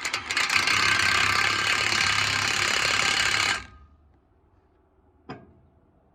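Cordless impact wrench hammering on a chipper knife bolt for about three and a half seconds, then stopping abruptly; a single short click follows a little later.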